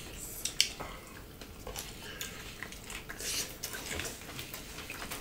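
Eating sounds at a table: quiet chewing with scattered small clicks and taps of fingers and food against plates.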